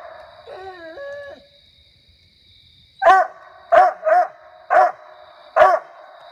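A hound barking treed at a raccoon: a short wavering howl-like cry about half a second in, a lull, then five sharp barks in quick succession from about three seconds in. The bark tells the hunters that the coon is up the tree.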